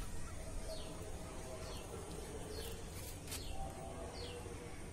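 A bird calling, a short high note that falls in pitch, repeated about once a second, over a low steady background rumble.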